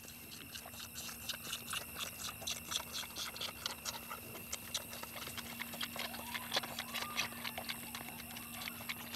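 A lamb suckling at a milk bottle: quick, irregular wet smacking clicks, several a second, over a faint steady hum.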